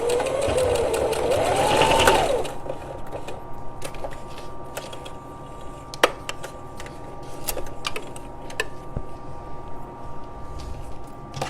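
Sewing machine stitching across a folded webbing strap, its motor whine rising and falling in pitch as the speed changes, then stopping a couple of seconds in. Scattered small clicks and taps follow.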